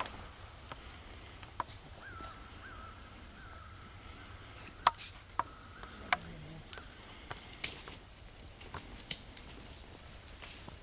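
Dry twigs and brush snapping and crackling underfoot as someone walks through a pine thicket, in scattered sharp cracks. A faint drawn-out call is held from about two to six seconds in.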